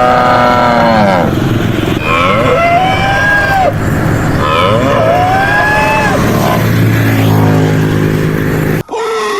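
Cattle mooing: several long calls, each rising then falling in pitch, over a steady noisy background, with a lower drawn-out call near the end.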